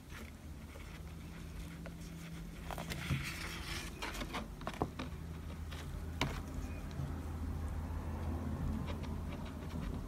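Brush and painting tools working on the painting surface: scattered light taps and dabs, with a short scratchy brushing stroke about three seconds in, over a steady low hum.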